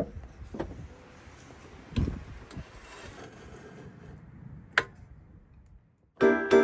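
Wood and a miter saw being handled: scattered knocks and rubbing, a dull thump about two seconds in and a sharp click near five seconds, with no saw motor running. Chiming music starts near the end.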